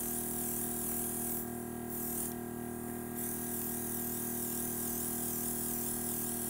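Airbrush hissing as it sprays, over the steady hum of a small airbrush compressor. The hiss stops briefly twice, about one and a half and two and a half seconds in, while the hum runs on.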